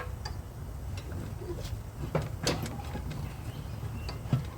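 A few scattered metallic clicks and knocks from handling parts of a riding mower's cutting deck (belt, spring-loaded idler arm, wrench), the strongest about two seconds in, over a low steady hum.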